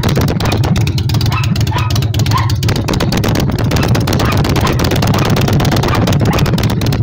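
Motorcycle engine running at a steady idle, heard loud and close at its staggered dual exhaust pipes.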